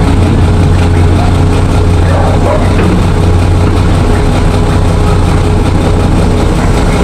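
An engine running steadily at idle with a loud, even low hum.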